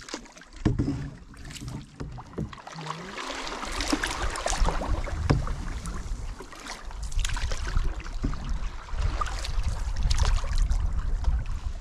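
Canoe paddle strokes in lake water: repeated, irregular splashes and swishes as the blade dips and pulls, over a steady low rumble of wind on the microphone.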